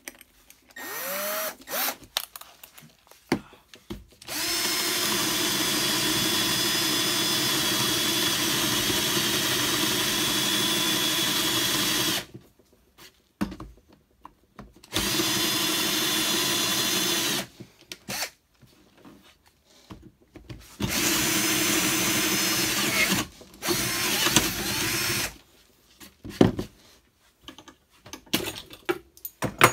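Milwaukee M12 cordless drill boring through a thin wooden board with a 3/8-inch spade bit. A couple of quick trigger blips, the first rising in pitch as the motor spins up, then a long steady run of about eight seconds and three shorter runs of two to three seconds with pauses between.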